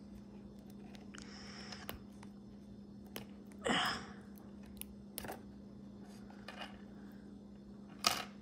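Small plastic clicks and brief rustles as action figure parts are handled and fitted together, with a sharper click near the end, over a faint steady hum.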